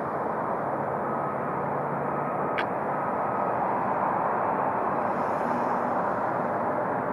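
Jet engines of an approaching KLM Airbus A330 on final approach, gear down: a steady rushing jet noise that grows slightly louder in the second half.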